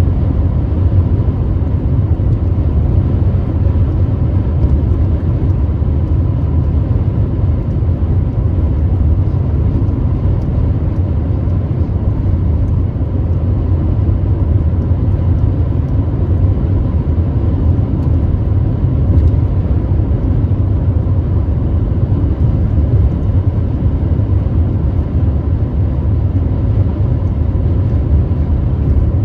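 Steady road noise of a car driving at speed, heard from inside: a low rumble of tyres and engine with no change in pitch, and a faint steady whine above it.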